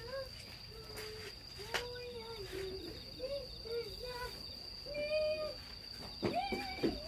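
Crickets trilling steadily on one high note, with faint voices chatting in the background and a couple of light clicks.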